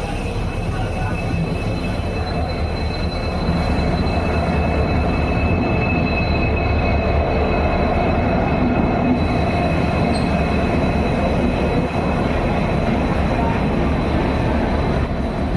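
WDP-4D diesel-electric locomotive running with a deep steady hum from its 16-cylinder EMD two-stroke engine and two thin high whining tones held above it. The sound grows louder about three and a half seconds in.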